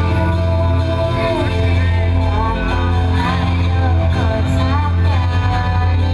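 Loud music from a carnival sound system, with a heavy, constant bass, held tones and a singing voice.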